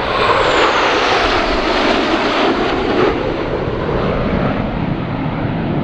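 Jet engine noise from a diamond formation of four F-16 Fighting Falcons passing overhead, loud and steady, with a high whine falling in pitch over the first second or so.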